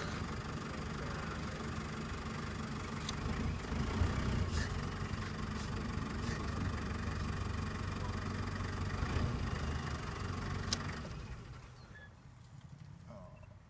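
Car engine idling steadily, with a few sharp clicks over it; the engine hum drops away about eleven seconds in.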